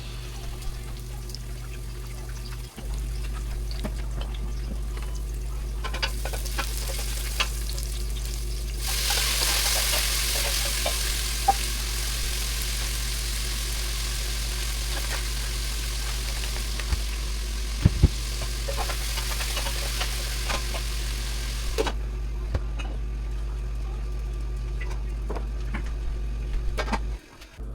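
Kitchen cooking sounds: a steady low hum throughout, a long stretch of hissing in the middle, and scattered clicks and knocks of utensils. The hum cuts off suddenly near the end.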